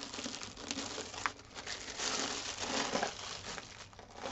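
Clear cellophane wrapper crinkling and rustling in uneven fits as a rolled diamond painting canvas is worked out of it. It is loudest about two to three seconds in.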